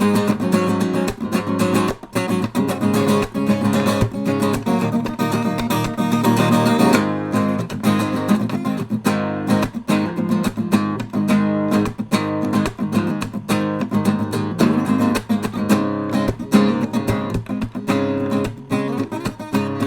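Background music: fast plucked and strummed acoustic guitar.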